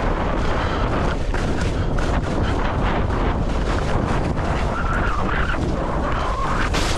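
Skis scraping and chattering over chopped-up, tracked snow at speed, with wind buffeting the camera microphone; a sharp hit near the end.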